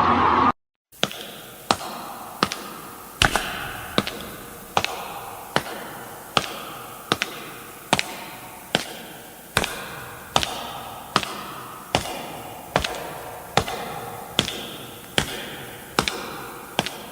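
Dragon Ball anime sound effect: sharp hits repeating evenly about every 0.8 seconds, each trailing off in a short ringing tail, about twenty in all. Half a second in, a louder steady effect cuts off just before the hits begin.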